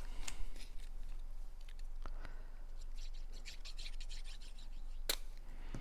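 Paper craft pieces being handled and rubbed against each other and the work surface, giving irregular scratching and rustling, with one sharp tap about five seconds in.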